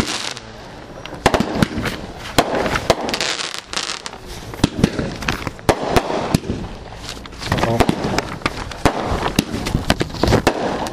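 Raging Ninja aerial fireworks item firing: a long run of sharp bangs from shells bursting in the air, coming at uneven intervals, some close together and some a second or more apart.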